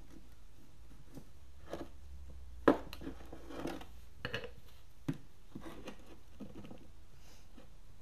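Handling noises of wrapping plumber's tape onto a hydraulic hose's threaded metal fitting: soft rustling and a few light clicks and knocks of the fitting and hose against a wooden workbench, the loudest a sharp knock a little under three seconds in, over a low steady hum.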